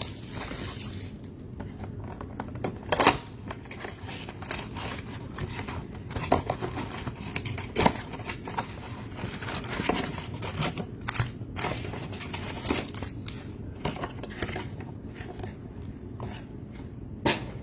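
Trading card packaging being opened and handled: crinkling and tearing of pack wrappers and box cardboard, with irregular sharp snaps and clicks, the loudest about three seconds in and near the end, over a low steady hum.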